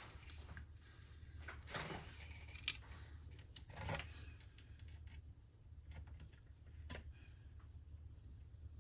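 Faint clicks and rustles of small plastic parts being handled in an opened cassette data recorder's mechanism, with one sharper click a couple of seconds in, over a faint steady low hum.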